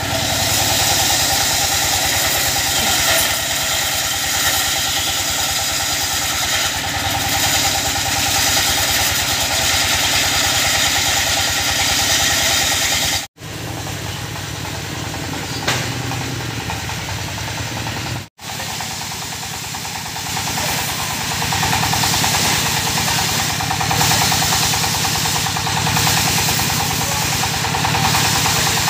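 Single-cylinder stationary diesel engine running steadily, driving a belted circular saw bench that rips teak timber, with a high hiss over the engine's chugging. The sound breaks off for a split second twice, near the middle.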